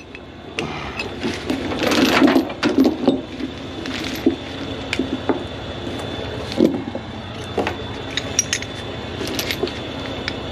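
Steel tie-down chains clinking and rattling as they are handled, with scattered sharp metal clanks.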